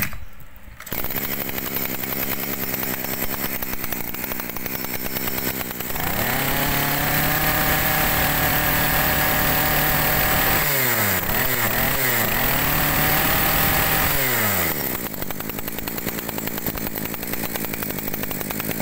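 Maruyama brush cutter's small engine starting about a second in and idling, then revved up to full throttle twice, with a few quick blips between, before dropping back to idle.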